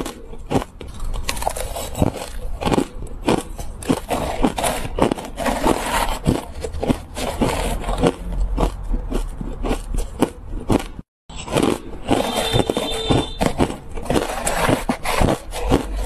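Close-up crunching and chewing of crushed, crispy ice, a dense run of sharp irregular crunches. The sound cuts out completely for a moment about eleven seconds in.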